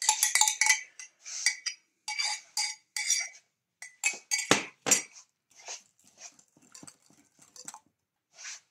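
Metal whisk and spoon clinking and tapping against a glass mixing bowl and a measuring cup, a quick string of short clinks with two duller knocks about halfway through, then fainter scattered taps.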